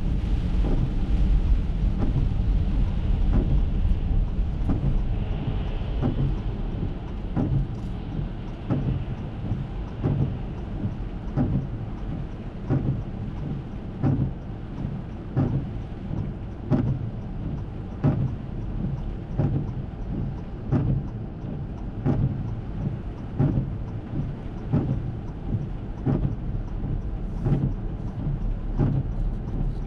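Inside an Acura MDX in the rain: road and tyre noise on a wet road as the SUV slows during the first several seconds, then a low rumble at standstill with a regular soft knock roughly once a second.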